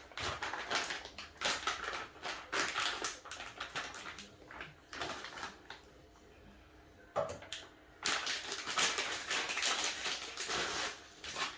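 Crackling and rustling of packaging being cut open with a knife and handled, in two spells with a quieter pause in the middle.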